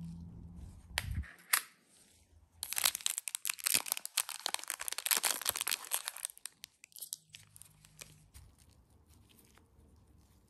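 Clear plastic wrap being torn and crinkled off a small round plastic jar: a dense, loud crackling for about four seconds, after a couple of light plastic clicks about a second in.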